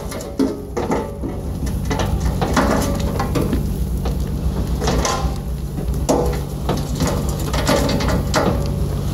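1973 Diamond Reo dump truck's inline gasoline engine running steadily while the raised bed tips out a load of dirt, the dirt sliding and pouring past the tailgate with an uneven rattle and clatter.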